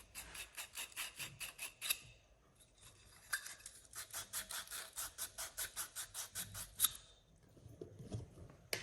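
Abrasive strip rubbed back and forth around the end of a copper tube, about five strokes a second, in two bouts with a short pause between; this cleans the tube end before flux and solder go on.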